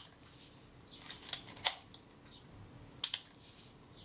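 Kodak Retina IIIS camera's shutter and film-release mechanism clicking: a few short, sharp clicks, a little cluster about a second in and one more about three seconds in. The mechanism is being worked to test a freshly adjusted film-release screw.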